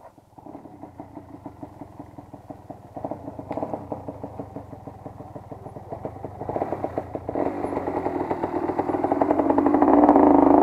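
Kawasaki dirt bike's engine revving in uneven surges as the rider works the throttle, getting steadily louder as the bike comes closer and climbs at a fallen log, loudest near the end.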